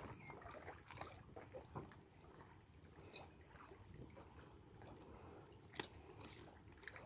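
Faint crackling and hiss from a fire throwing off showers of sparks, with scattered small pops and one sharper crack about six seconds in.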